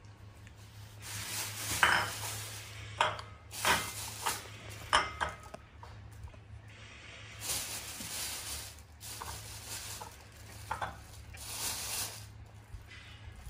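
A glass bowl clinks on a tiled countertop and fruit knocks into it, several sharp clicks in the first five seconds. Then a plastic bag rustles in bursts as java apples are taken out of it.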